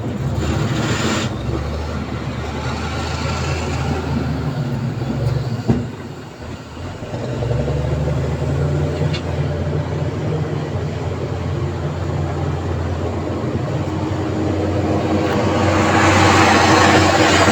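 Heavy construction machine's diesel engine running steadily, with a sharp knock and a brief drop about six seconds in, and a broad rushing noise building near the end.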